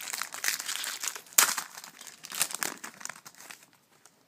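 A Bowman Platinum baseball card pack being torn open by hand, its wrapper crinkling, with a sharp rip about a second and a half in. The crinkling stops shortly before the end.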